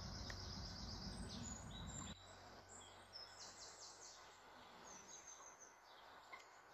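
Songbirds singing faintly in the trees around the lake: repeated high trills and chirps. A low rumble underneath cuts off abruptly about two seconds in.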